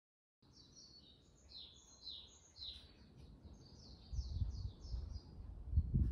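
A small bird chirping outdoors, a quick string of short, falling chirps. A low rumble on the microphone comes in about four seconds in and is loudest near the end.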